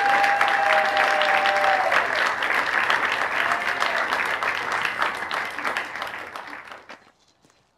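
Crowd applauding and cheering, with a long held cheer at first, then clapping that dies away about seven seconds in.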